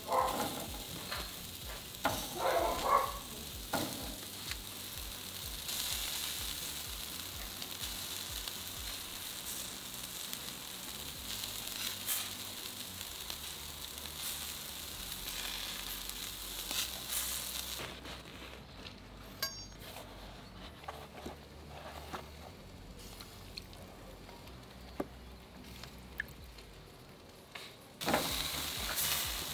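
Beef ćevapi sizzling on a charcoal grill grate, a steady frying hiss. The sizzle drops away for several seconds about two-thirds of the way through and returns near the end.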